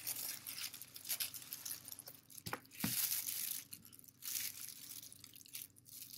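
Kitchen knife slicing into raw chicken thighs on a wooden cutting board, with the crinkle of a disposable plastic glove: irregular scratchy rustling, and two sharp clicks about halfway through.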